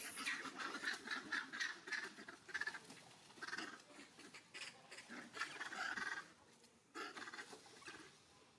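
Long-tailed macaques calling: a rapid string of short, high-pitched cries, one after another, that tail off near the end.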